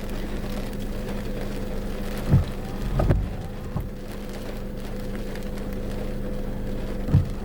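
Steady hum of a car driving, with a few short dull thumps.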